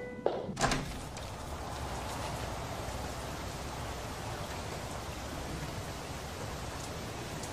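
A steady, even rain-like hiss. Two short knocks come in the first second, as the last notes of music die away.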